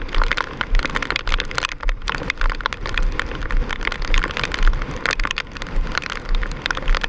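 Heavy wind-driven hurricane rain pelting the phone's microphone in dense, irregular hard drops, with gusts buffeting the microphone in low, uneven rumbles.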